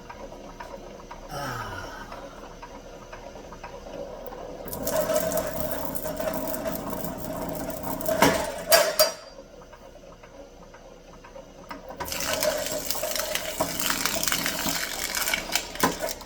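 Electric wire-stripping machine running, with copper cable fed through it twice: each pass is a loud, steady ripping as the blade slits the insulation and the casing tears off, lasting a few seconds, with a couple of sharp clicks near the end of the first pass.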